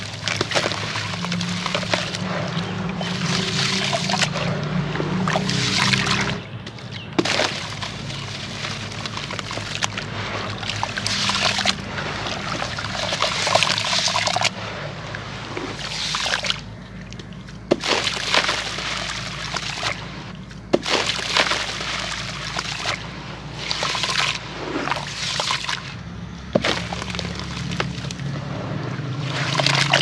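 Hands sloshing and crumbling soaked concrete chunks in a tub of muddy water: splashing, churning and water streaming back off the hands, coming in irregular surges with brief lulls between them.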